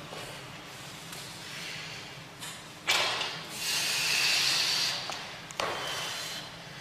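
A weightlifter's forceful breathing under a heavily loaded barbell: a sharp blast of breath about three seconds in, a long hissing exhale, and another hard breath near the end.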